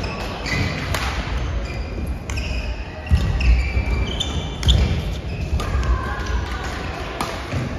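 Badminton rally on an indoor court: sharp racket hits on the shuttlecock, short shoe squeaks on the court floor, and heavy footfall thuds, loudest a little past the middle.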